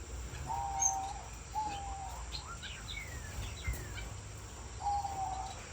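Caged owl finches (double-barred finches) calling: two drawn-out, steady, nasal calls near the start and two more near the end, with quick falling chirps in between.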